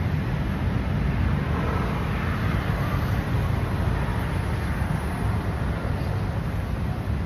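Steady low rumble of city street traffic, with wind buffeting the phone's microphone as the runner jogs.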